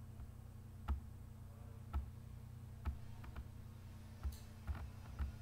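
Computer mouse clicking about once a second, a few clicks coming in quick pairs, over a faint steady low hum.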